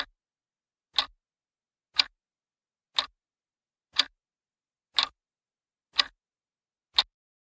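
Countdown timer sound effect: eight clock ticks, evenly spaced one per second.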